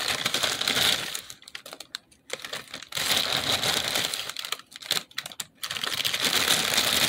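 Hand rummaging in a plastic bag of Froot Loops cereal, the bag crinkling and the loops rattling in a dense run of fast clicks. It comes in stretches, with brief lulls about two seconds and five seconds in.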